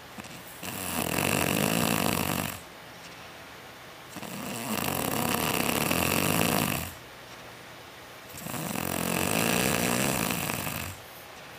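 A sleeping woman snoring loudly: three long snores, each about two seconds, coming roughly every four seconds.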